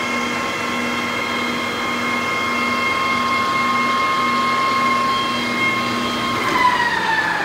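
Precision Matthews TL1640 gear-head lathe running with the chuck spinning, a steady high gear whine. Near the end a click as the spindle lever is thrown, and the whine falls in pitch as the spindle coasts down.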